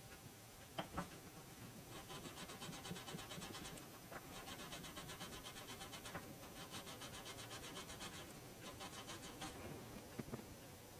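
Steel wool rubbed quickly back and forth on a metal coin ring, making a rapid scratchy scrubbing in several runs. There are light knocks about a second in and again near the end.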